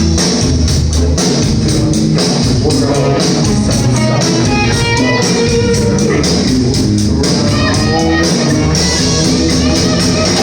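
Rock band playing an instrumental passage with electric guitar, bass guitar and a steady drum beat.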